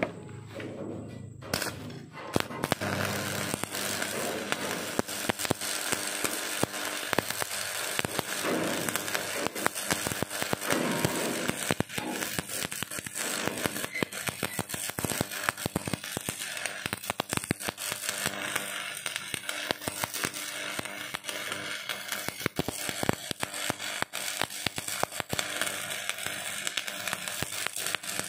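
Electric arc welding on a metal roller: a steady sizzling crackle of the arc, full of quick pops and snaps.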